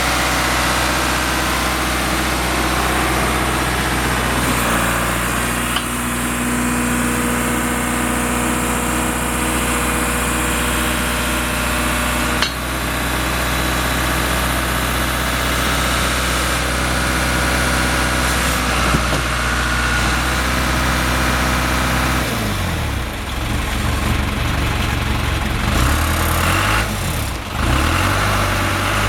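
John Deere 410C backhoe's diesel engine running steadily. About three-quarters of the way through, its speed dips and rises several times.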